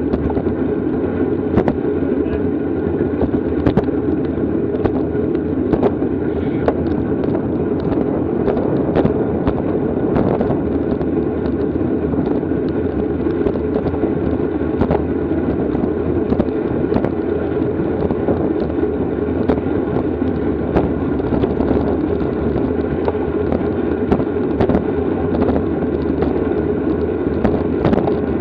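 Steady wind rush on the microphone of a camera riding along in a bicycle race, with scattered crackling clicks.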